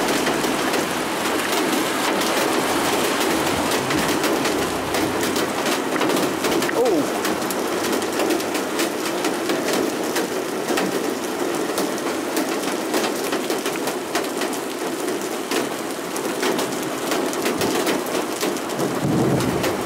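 Heavy rain pouring onto a wet pavement: a steady hiss, dense with the crackle of individual drops striking close by.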